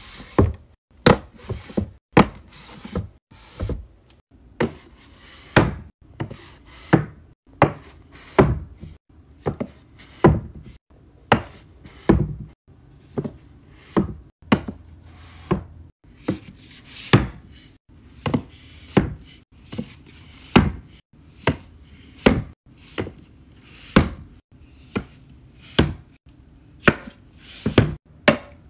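Books being set down upright on a wooden shelf and knocked into line: a steady run of hollow knocks and taps, about one or two a second.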